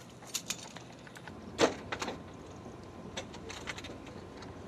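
Scattered clicks and knocks of UH-60M Black Hawk cockpit doors and fittings being handled during a preflight inspection, with one loud knock about a second and a half in and a few lighter clicks after it.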